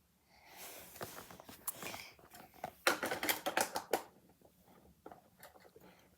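Plastic LEGO pieces being handled: a quick run of small clicks and rattles, loudest about three seconds in, thinning to a few faint ticks near the end.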